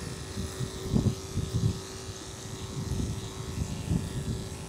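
Andis two-speed electric dog clippers running steadily with a single-pitched hum while clipping a dog's leg fur, under irregular low knocks and rumbles.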